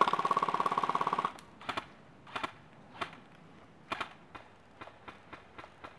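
Airsoft electric gun firing one burst on full auto for just over a second, a rapid rattle of shots over the whine of its motor and gearbox. Several separate sharp clicks and snaps follow.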